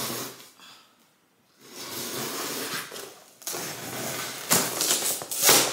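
Knife blade slicing through a cardboard shipping box: a rasping scrape in several long strokes with short pauses between them, two of them louder near the end.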